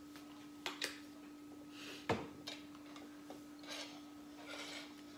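Light clicks and knocks of a sauce bottle and tableware on a dinner table, the sharpest a single click about two seconds in, with soft rustling as taco food is handled. A steady low hum runs underneath.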